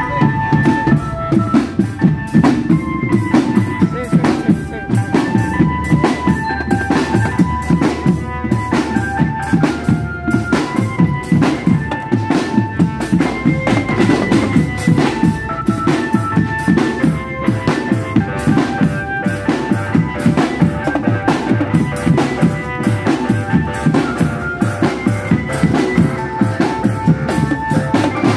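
Marching drum band playing: snare drums, bass drums and cymbals beating a steady, driving rhythm, with a high melody line of short pitched notes over the drums.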